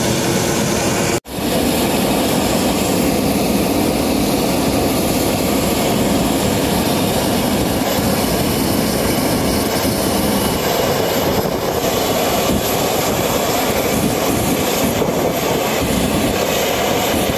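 Steady jet aircraft engine noise, with a brief cut-out about a second in.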